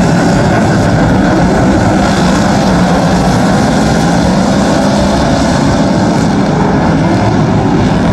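Superstock speedway race cars' V8 engines running loud and steady, with no break.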